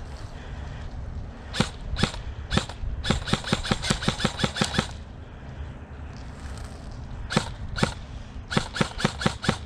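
Airsoft electric rifle (a Krytac AEG) firing. Three single shots, then a quick string of about a dozen shots. After a pause come two more single shots and another rapid string near the end.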